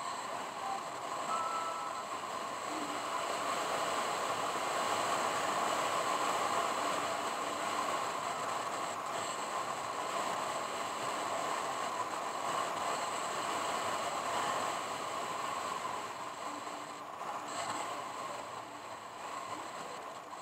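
Steady road noise of a car driving: a constant rushing hum of tyres and engine.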